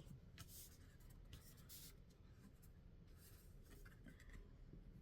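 Faint rustling and sliding of tarot cards being handled, a few soft swishes spread through an otherwise quiet room.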